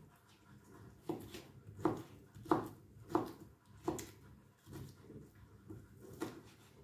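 Kitchen knife chopping ham into cubes on a cutting board: about five sharp knocks roughly two-thirds of a second apart, starting about a second in, then a few lighter taps.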